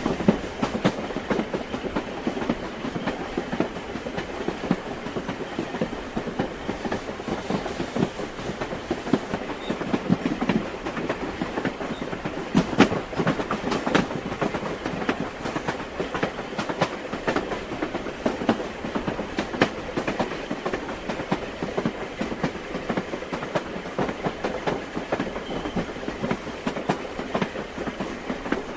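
Train wheels clattering over rail joints with a steady rumble, many irregular knocks over continuous running noise.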